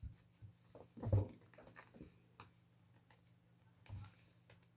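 Two-month-old Oriental kittens play-fighting on carpet: soft thumps and scuffles as they tumble and swat at each other, the loudest about a second in and another near the end.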